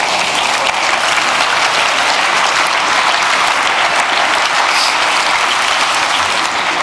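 Audience applauding steadily in a dense clatter of many hands clapping.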